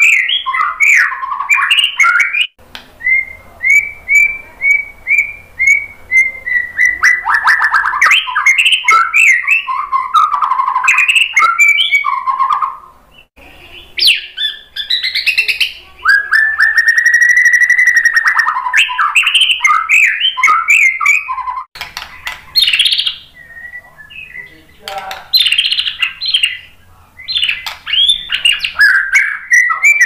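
White-rumped shama singing: a loud, varied song of whistled phrases, quick chirps and trills, with a run of short repeated notes a few seconds in, one long arching whistle about midway, and brief pauses between bouts.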